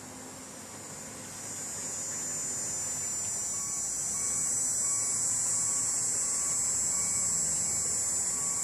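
Insects droning in a high, steady buzz that swells louder about a second and a half in.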